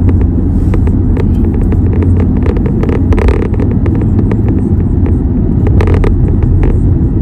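Steady, loud low rumble of a car driving, heard from inside the cabin, with scattered short clicks and rustles close to the microphone.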